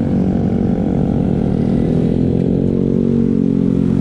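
Steady low drone of riding a LION Q1 electric scooter at about 50 to 60 km/h: wind and road noise at speed.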